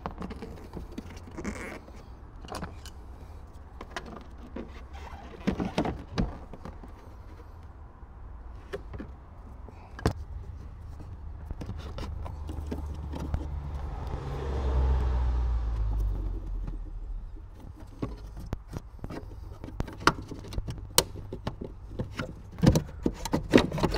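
Hands unfastening a Ford Mondeo's rear tail-light assembly: scattered clicks and taps of plastic fittings and tools. A low rumble swells and fades about midway through.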